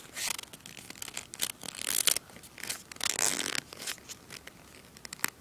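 A sheet of paper being folded and worked between the fingers close to the microphone: crinkling and rustling with sharp crackles in irregular bursts, loudest about two and three seconds in.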